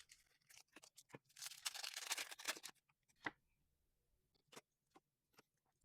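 Faint crinkling and rustling of foil Pokémon booster pack wrappers being handled, followed by a few light clicks and taps.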